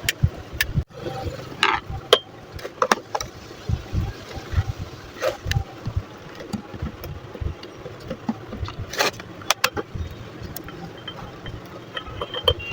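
Irregular sharp clicks and knocks with dull low thumps, over a steady background hiss.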